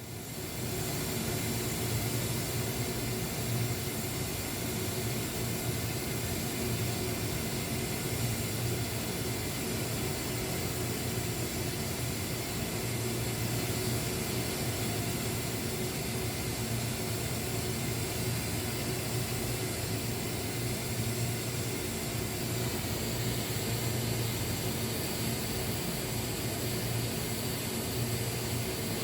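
Electric arc welding on a tank: a steady arc hiss with a constant low buzz, starting about half a second in and holding evenly throughout.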